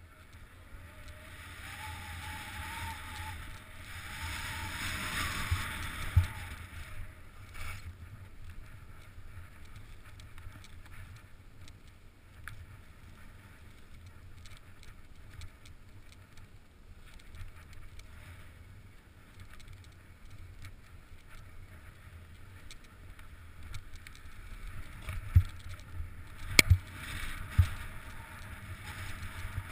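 Skis hissing and scraping over chopped-up snow on a downhill run, loudest in the first several seconds, over a steady low rumble of wind on the microphone. A few sharp knocks near the end.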